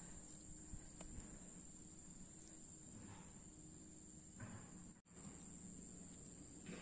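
Steady high-pitched chorus of insects in a rice field, cutting out briefly about five seconds in.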